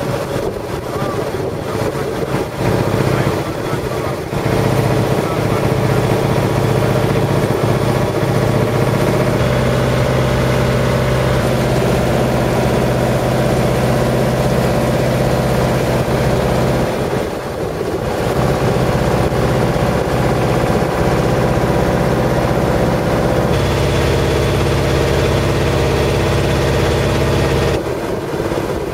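Boat engine running steadily while under way, its note shifting a few times.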